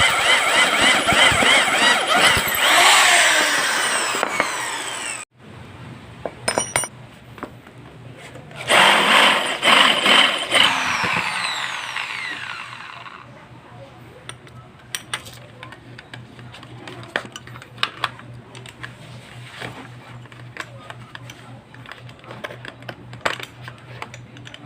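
Handheld power tool running, then winding down with a falling whine about two to five seconds in; a second run about nine seconds in also winds down. After that a steady low hum with scattered clicks and taps.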